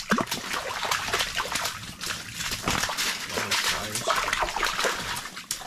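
Wet splashing and slapping from a freshly landed fish flopping at the ice-fishing hole, a busy run of short splashes and clicks.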